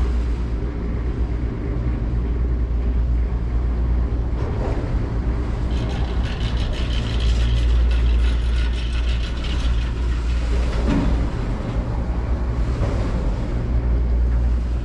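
Doppelmayr detachable gondola station running, with a steady low hum from the bullwheel machinery. From about six to ten seconds in, a stretch of rapid clicking and rattling comes from the cabins rolling through the station.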